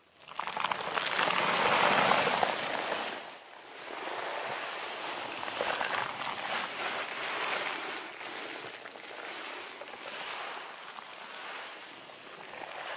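A rushing, hissing noise that starts suddenly, swells to its loudest about two seconds in, then goes on wavering at a lower level.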